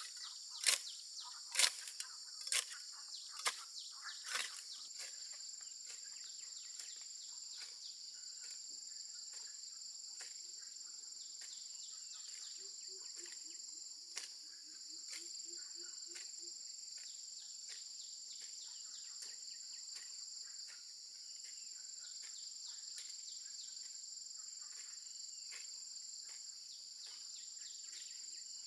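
Steady high-pitched chorus of crickets or cicadas. In the first few seconds a run of sharp strikes comes about once a second and is the loudest thing heard; softer scattered taps follow.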